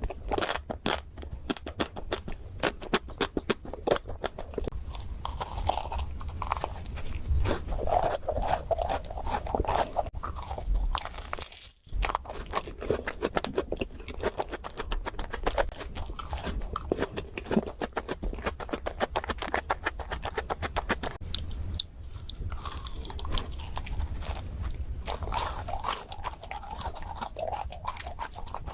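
Close-miked eating of chocolate desserts: crunchy bites and chewing, a dense run of crackling clicks, broken by a short gap about twelve seconds in.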